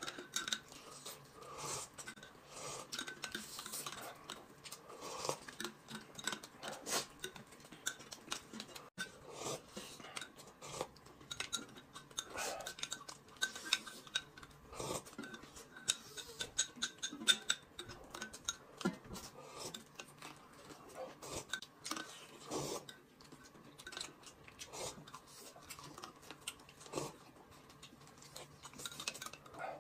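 A spoon clicking and scraping in a ceramic cup of thick black sesame paste, with quiet chewing; many short, light clicks scattered throughout.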